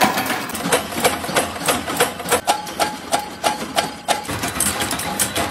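Mechanical power press punching sheet-steel strip, a fast run of sharp metallic strokes about three a second.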